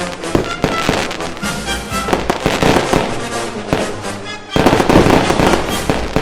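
Fireworks going off in quick succession, many sharp bangs and crackles, over background music. A loud, dense volley breaks about four and a half seconds in.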